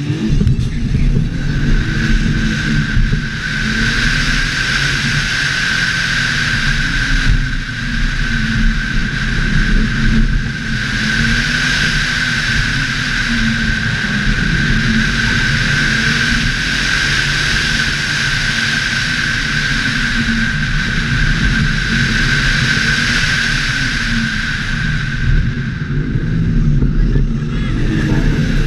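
Audi RS4 engine accelerating hard from a standing start and running at high revs, its pitch rising and falling, with brief dips at the gear changes in the first ten seconds and easing off near the end. A steady high whine and heavy wind rush on the bonnet-mounted microphone sit over the engine.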